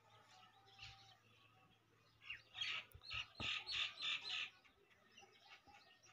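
Rain quail calling: a quick run of about seven sharp, evenly spaced notes, high-pitched, lasting about two seconds near the middle, with fainter chirps before it.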